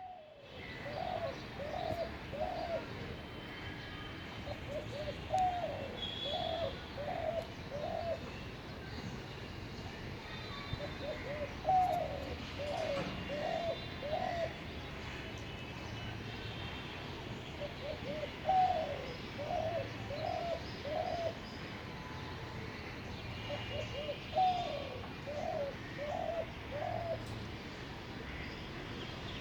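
Spotted dove cooing: a phrase of four or five low coos, the first a little higher and falling, repeated about five times at intervals of five to six seconds. Smaller birds chirp faintly in the background.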